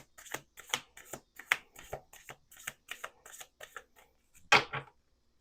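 A deck of Lenormand cards being shuffled by hand: a quick run of light card clicks and flicks, several a second, then one louder rustle of the deck about four and a half seconds in.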